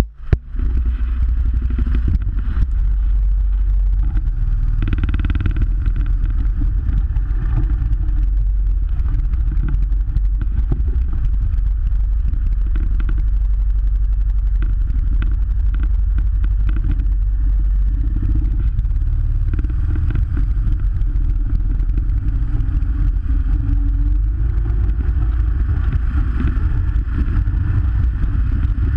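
Utility vehicle's engine running steadily as it drives across snow towing a sled, setting in about half a second in as it pulls away.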